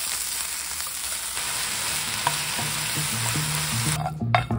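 Julienned chives, carrots and onion sizzling in a hot frying pan as they are stir-fried with wooden chopsticks. The sizzle is steady and cuts off suddenly about four seconds in.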